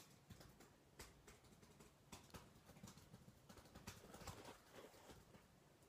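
Near silence, with faint, irregular clicks and light rustles of a phone and clothing being handled.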